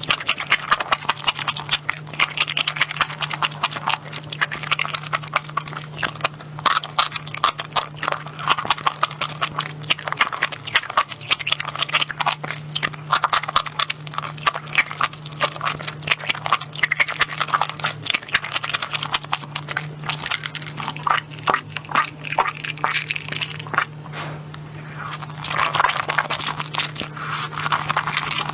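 Close-miked eating sounds: a fast, dense run of small crunches, clicks and mouth smacks from chewing, over a steady low hum.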